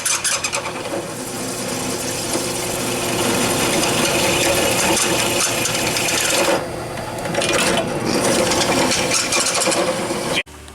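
Electric drill boring holes in metal, running steadily with brief dips about six and a half and eight seconds in, then cutting off suddenly near the end.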